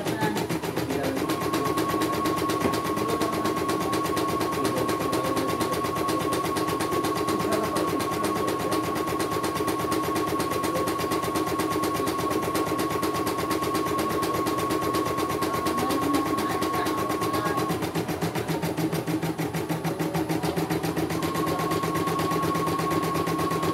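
CNY E900 computerized embroidery machine stitching a design: a rapid, even needle clatter with a steady high whine that drops out for a few seconds near the end and then returns.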